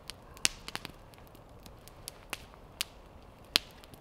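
Wood campfire crackling: sporadic sharp pops and snaps over a faint hiss, the loudest about half a second in and near the end.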